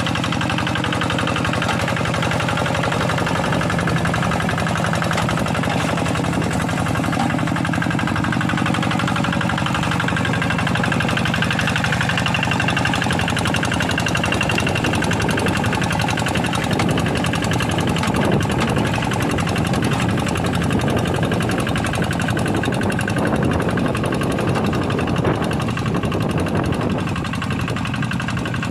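Kubota single-cylinder diesel engine of a Quick G1000 hand tractor running steadily under load while ploughing a paddy field, with a fast, even chugging from its firing.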